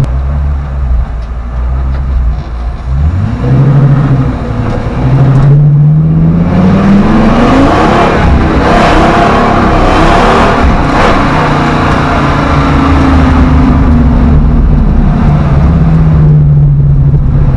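Ford Triton 6.8L V10 in a 1970 Ford F100 pickup accelerating hard: the revs climb, dip briefly about five seconds in, then rise steeply to a loud peak around ten seconds in before falling away slowly as it eases off.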